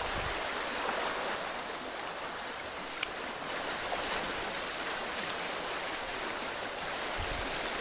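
Steady rushing outdoor noise, with one sharp click about three seconds in.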